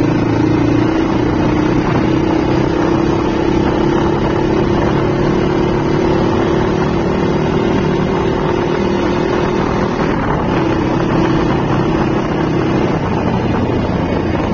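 Crossfire RM 250's single-cylinder four-stroke engine running at a steady low cruise, its exhaust note still muffled by the fitted dB killer, with wind rushing over the phone's microphone.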